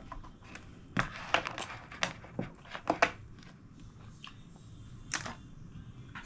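Irregular light clicks and taps as the fabric and needle area of a small sewing machine are worked by hand, with no steady motor running.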